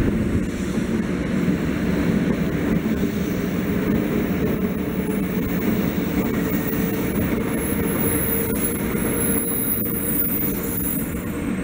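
Shinkansen bullet train running, a steady loud rumble with a high whine that comes in about halfway through.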